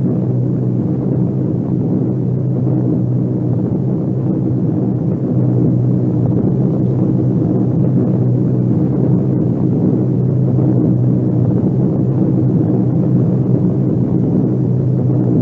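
Steady drone of four-engine piston bombers in formation: a deep, even hum with several layered tones, a little louder about five seconds in.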